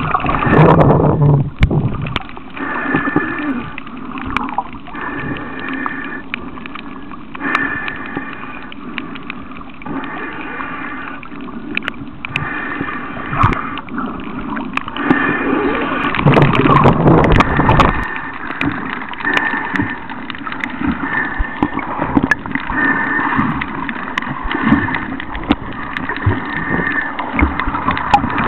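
Water sloshing and gurgling around a camera held in the sea while snorkelling, with splashes, and a higher sound that comes and goes about every one and a half to two seconds.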